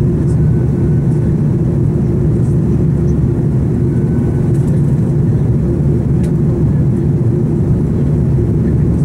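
Steady cabin drone of an Airbus A340-300 airliner in flight after takeoff. The noise of its four CFM56 engines and the passing air, heard through the fuselage, is a loud low rumble with a steady hum.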